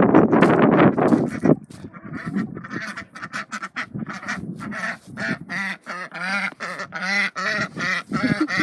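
Footsteps crunching on gravel for the first second and a half, then two female Indian Runner ducks quacking in a rapid, excited chatter of short calls, the hungry calling of ducks expecting to be fed.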